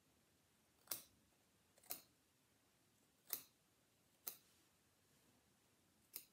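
Very sharp little embroidery scissors snipping through wadding (batting) to trim it flush with the hoop: five separate crisp snips, spaced roughly a second apart.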